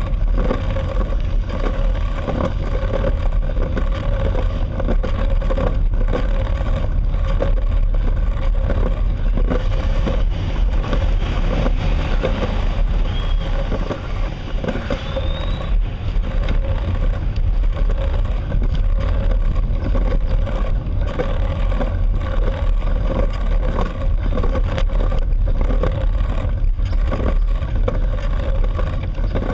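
Steady rumble and hum of a slow-moving vehicle and its tyres on the road, with a constant droning tone throughout. Two faint short chirps come about halfway through.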